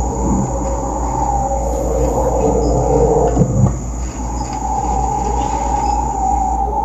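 Rainforest insect chorus: steady overlapping drones at a few pitches, with a thin high whine above them.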